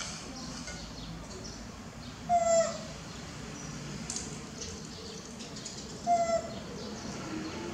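Baby monkey giving short, high coo calls: two brief, slightly falling notes about four seconds apart.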